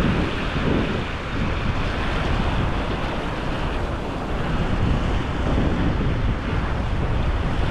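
Wind buffeting the microphone in a steady rumble, over surf washing in on the shore.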